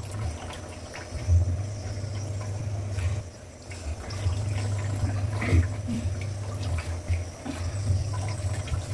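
Wet wheat-flour dough being kneaded by hand in a parat: squelching and pressing, with a low hum that comes and goes in stretches of a second or more and a few small clicks.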